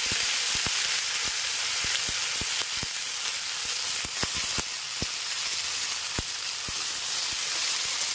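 Water spinach stems and leaves, potato and brinjal sizzling steadily in hot oil in a metal kadai: wet vegetables just added to the pan. A metal spatula scrapes and clicks against the pan about twice a second as they are stirred.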